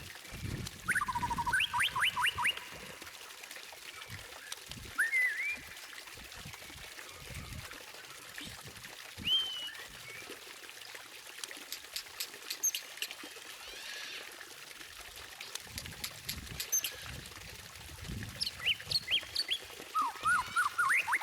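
White-rumped shama (murai batu) singing in separate phrases: fast runs of repeated notes and short rising whistles, with pauses between them, over a steady hiss.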